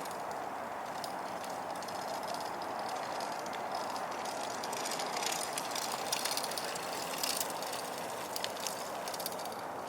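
Downhill mountain bike being ridden: steady rolling noise of tyres on dirt, with sharp clicks and rattles from the bike, most of them around the middle.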